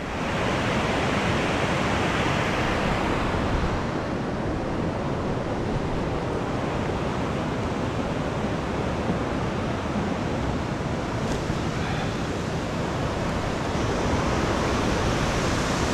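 Steady rush of a mountain torrent tumbling over rocks, a little brighter near the end.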